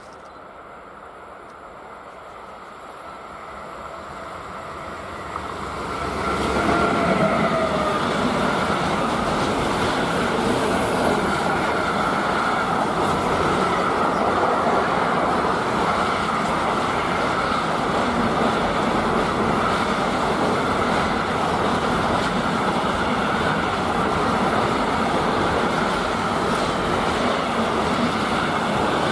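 Freight train approaching, growing louder over about six seconds, then its wagons rolling past steadily.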